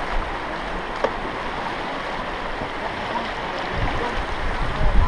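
Steady rush of river water around an inflatable raft on a rocky riffle, with a single click about a second in and wind buffeting the microphone from about four seconds in.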